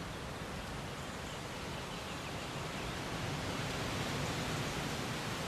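Steady rushing noise, even from low to high pitches with a rumble underneath, swelling slightly after the middle; no distinct events.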